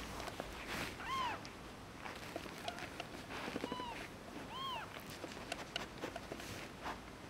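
A very young kitten mewing three times: short, thin, high mews that rise and fall in pitch, one about a second in and two close together around the middle, over soft rustling and small clicks.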